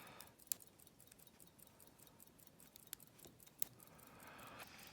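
Faint, sparse metallic clicks and ticks of a lock pick working the pins inside an old all-brass Yale padlock during single pin picking. Three sharper clicks come about half a second, three seconds and three and a half seconds in.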